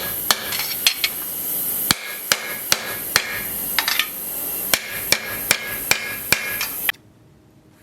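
Hammer tapping on metal about two or three times a second, each blow leaving a short ringing note, over a steady hiss. It stops suddenly near the end.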